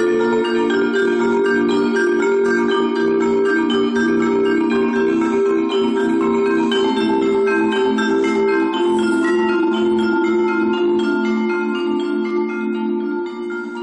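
Marimba ensemble of five players playing together: chords of several notes held for a few seconds at a time, with lighter upper notes above, easing a little in loudness near the end.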